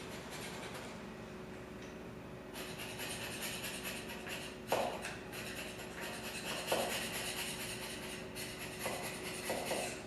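Hand scraping of a cast-iron machine guideway: repeated rasping strokes of metal on metal, with a few sharper knocks in the second half and a faint steady hum underneath.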